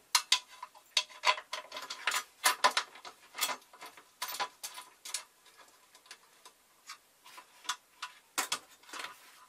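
Wooden sacrificial fence being handled and seated against a steel table saw fence: a run of irregular light clicks and knocks, dense over the first few seconds, sparser later, with a short cluster near the end.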